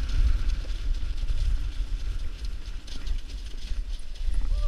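Dog sled gliding over packed snow: the runners hiss and scrape steadily, with heavy low rumble from the sled's vibration and wind on the sled-mounted camera.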